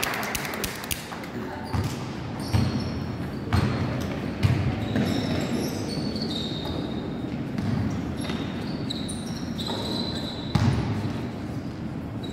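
Basketball game sounds on an indoor court: the ball bouncing in irregular thumps on the floor, sneakers squeaking in short high chirps, and players' voices, all with the echo of a large gym hall.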